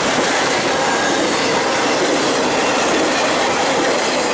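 Steady, loud rolling noise of a BNSF double-stack container freight train passing at speed, steel wheels running on the rails as its last well cars go by.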